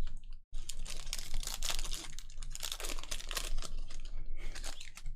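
Foil trading-card pack wrapper being torn open and crinkled in the hands, a dense run of fine crackles and clicks starting about half a second in.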